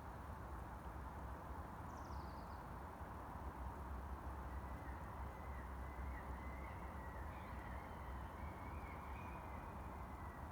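Faint outdoor ambience: birds calling over a steady low rumble, with one short, high, falling chirp about two seconds in and a thin wavering call running through the second half.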